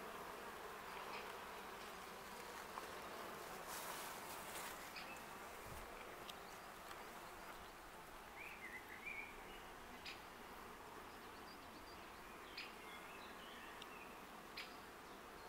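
Wild honeybee colony in a hollow tree trunk: a steady, faint hum of many bees flying in and out of the nest entrance. A short chirp about eight seconds in and a few faint clicks.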